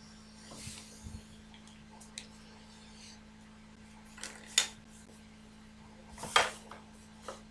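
Plastic set square and wooden ruler being moved and set down on a drawing board: a few sharp clicks and taps, the loudest about four and a half and six and a half seconds in, after a brief rustle of hands on paper. A faint steady hum runs underneath.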